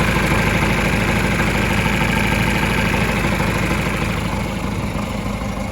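The John Deere 500-C backhoe's four-cylinder diesel idling steadily, with a close, even low-end chug, a little quieter over the last second or so.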